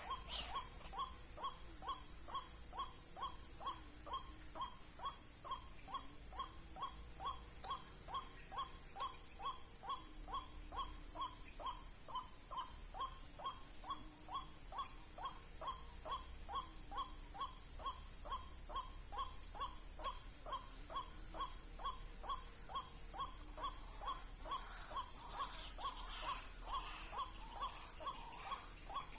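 White-breasted waterhen (ruak-ruak) calling, one short note repeated about three times a second without a break. A steady high insect drone runs underneath.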